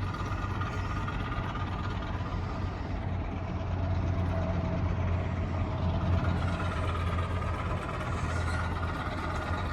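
Engine of an old work machine running steadily, a low, even hum.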